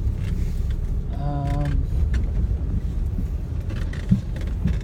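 Steady low rumble of a car driving, heard from inside the cabin, with a couple of small clicks near the end.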